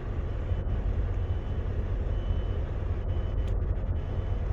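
Volvo VNL 760 semi truck's diesel engine idling, a steady low rumble heard from inside the cab, with a few light clicks about three seconds in. The truck is parked, with its warning light on and a parked regen required.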